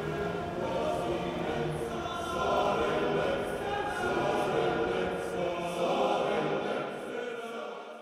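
A choir singing held chords together, fading out near the end.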